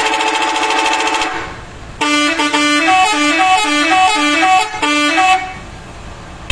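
Bus telolet horn, a multi-trumpet musical horn, sounding a loud held chord for about a second. After a short gap it plays a quick tune of short notes stepping up and down for about three seconds.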